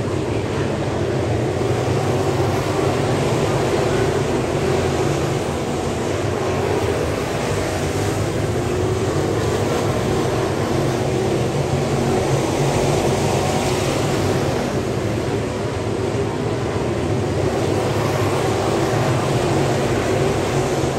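Dirt late model race cars with V8 crate engines running around a dirt oval, a steady engine drone that swells and fades a little as cars pass.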